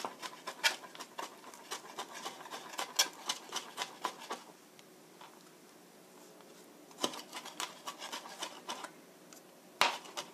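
Chef's knife mincing garlic on a plastic cutting board: quick runs of chopping taps, about five a second. The taps pause for a couple of seconds midway, then start again.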